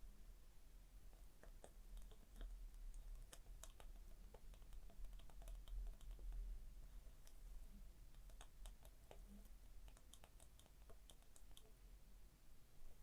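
Gentle tapping on an item: faint, irregular light clicks that come in two busy spells, the first from about a second and a half in, the second past the middle.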